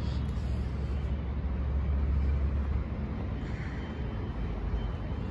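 Steady background road-traffic noise, with a deep low rumble that eases off about three seconds in.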